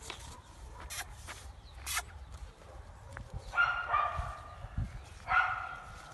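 A small dog giving short high-pitched cries twice, about three and a half seconds in and again near the end, while it is being handled.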